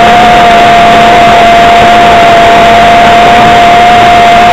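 OS .55AX two-stroke glow engine of a model trainer aeroplane running at a steady cruise throttle, heard loud and close from a wing-mounted camera, with a hiss of wind rush under its even, high-pitched buzz.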